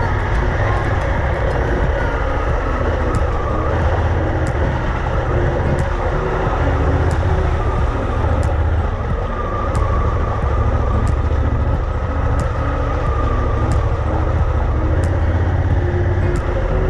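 Honda Africa Twin's parallel-twin engine running steadily as the motorcycle is ridden, with a deep, continuous rumble.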